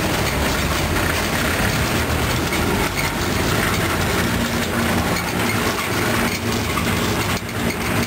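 Construction hoist cage running on its mast, with a steady mechanical rattle and clatter of the steel cage. A low steady motor hum joins about halfway through.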